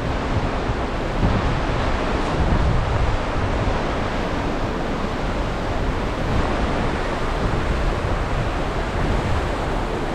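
Steady rushing of a large waterfall, mixed with wind gusting across the microphone.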